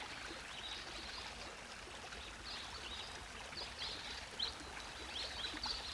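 Faint waterside ambience: gently moving water, with scattered short high bird chirps that come more often in the second half.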